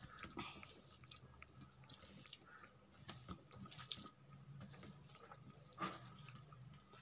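Faint, soft wet squishing and small clicks of fingers mixing rice and curry on a steel plate, with one brief louder sound about six seconds in.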